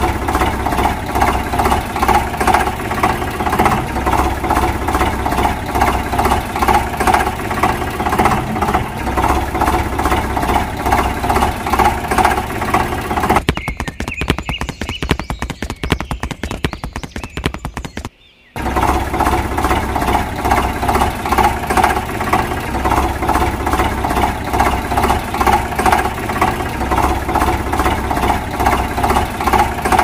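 Tractor engine chugging steadily with a regular knocking rhythm, laid over the pictures as a sound effect. About halfway through it gives way for a few seconds to a quieter, faster rattle and cuts out briefly before the chugging comes back.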